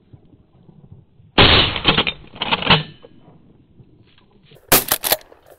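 Shotgun blasts fired at a flushed pheasant. Loud reports come about a second and a half in and again just under three seconds in, then a quick cluster of sharp cracks near the end, as more than one hunter keeps shooting.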